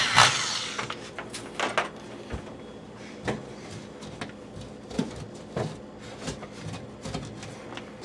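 Electric drill winding down as it finishes boring a hole in the wall, fading within the first second, then scattered light knocks and clicks of the drill and tools being handled.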